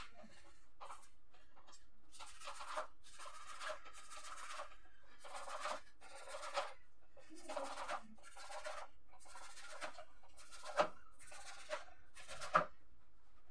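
Knife cutting through a bunch of leafy greens on a wooden chopping board: a run of short rustling cuts, about one every half second to a second, with two sharper knocks of the blade on the board near the end.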